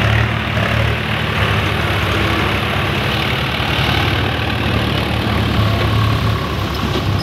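Swaraj tractor's diesel engine running steadily at low revs.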